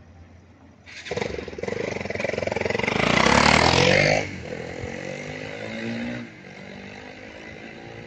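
Motorcycle passing close by: its engine rises in pitch and loudness from about a second in, drops off sharply a little after the midpoint, then fades to a lower hum.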